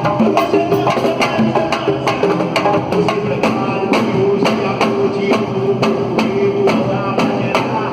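Samba music with drums and percussion playing a steady, fast beat of sharp strikes over sustained pitched tones.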